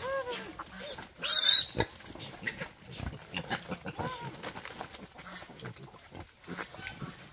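Wild boars feeding on banana leaves, with one short, loud, harsh cry about a second and a half in. Hens cluck now and then in short arched calls.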